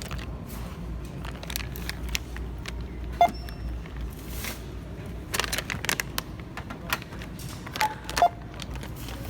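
Self-checkout barcode scanner giving short beeps as items are scanned: one a few seconds in and two close together near the end, amid clattering and rustling of packaging.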